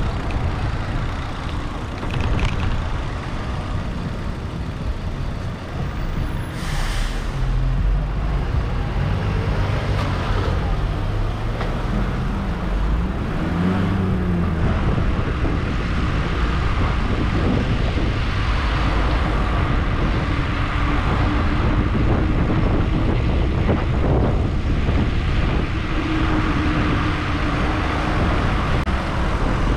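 Road traffic heard from a moving bicycle: the engines of passing cars and heavier vehicles, with a short air-brake hiss from a bus or truck about seven seconds in. Around thirteen seconds in an engine revs up and down, and later a steady engine hum runs beneath the traffic.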